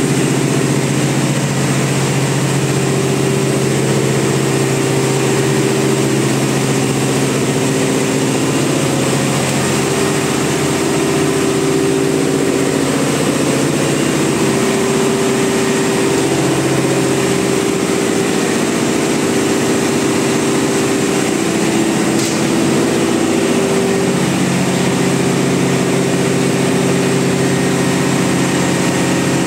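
Ship's marine diesel engine running in the engine room: a loud, constant drone with several steady low hum tones.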